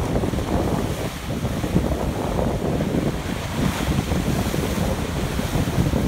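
Atlantic Ocean waves surging and splashing against a rocky shore, a continuous rush of surf with wind buffeting the microphone.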